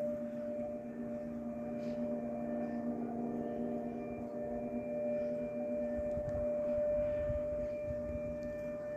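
Fire station siren sounding one steady, unwavering tone, with no rise or fall in pitch.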